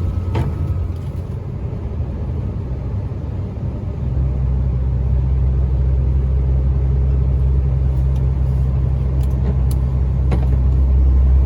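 Truck's diesel engine droning in the cab while driving. The engine note shifts and grows louder about four seconds in.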